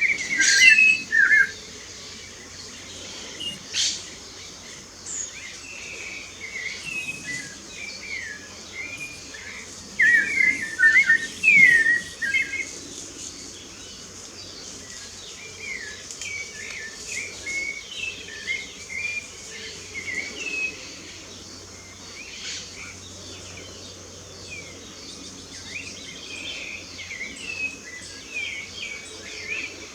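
Several songbirds singing short whistled and chirped phrases, with the loudest bouts near the start and about a third of the way in, over a steady high hiss.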